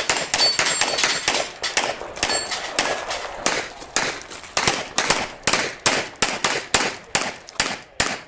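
Rapid handgun shots in a practical pistol competition string, fired quickly in the first few seconds and then at about three a second, with some hits ringing on steel targets early on.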